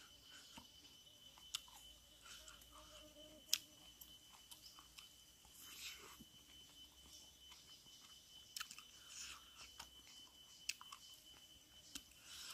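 Faint chewing while eating, with a few sharp clicks of a bamboo stick scraping inside a charred whole pumpkin, and soft breaths blowing on the food.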